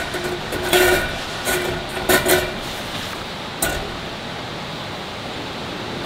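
Metal tongs clinking against a small round wire-mesh grill as slices of beef are laid on it: a few sharp clinks with a brief metallic ring, about one second in, around two seconds in and once more near the middle. A steady hiss runs underneath.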